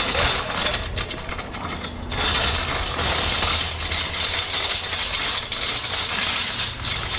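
Wire shopping cart rolling over brick pavers, its metal basket and small wheels rattling and clattering continuously, with a brief lull about two seconds in.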